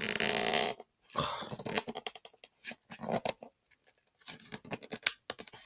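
Small cardboard Funko Mystery Minis box being picked and scraped at to open a flap that is stuck down, in a run of short scratchy rustles and clicks, the longest in the first second.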